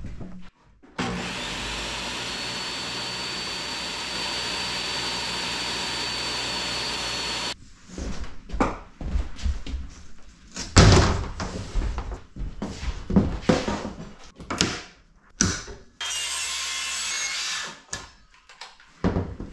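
A table saw runs steadily through a rip cut for about six seconds, with a thin high whine, then stops abruptly. Irregular knocks and clatter follow as a large sheet of mahogany plywood is handled. Near the end comes a brief cut from a handheld circular saw.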